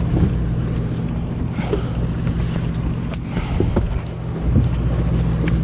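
A boat's engine running steadily with a low, even hum, under wind and water hiss, with a few sharp clicks over it.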